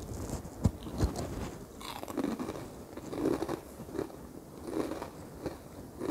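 A person chewing crunchy kerupuk seblak crackers: a run of crunches, one every second or less.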